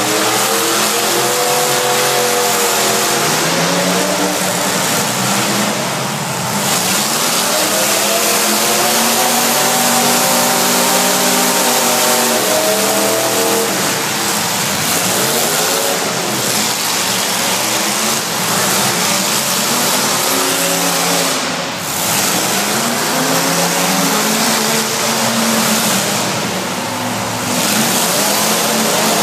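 Several demolition derby cars' engines revving hard at once, their pitches repeatedly rising and falling and overlapping.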